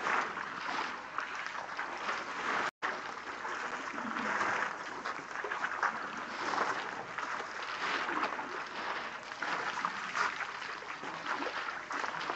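Water splashing and trickling as African elephants drink, spilling and squirting water from their trunks. The sound cuts out for an instant nearly three seconds in.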